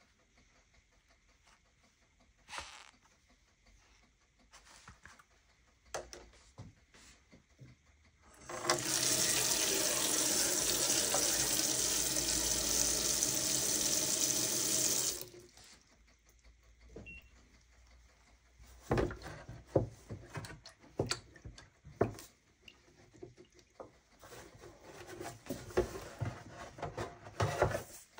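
Tap water running steadily for about six seconds onto a collodion glass negative in a plastic tray in a steel sink, rinsing the plate, then stopping abruptly. Later, a series of sharp knocks and clatter as the wet glass plate is handled and lifted in the tray.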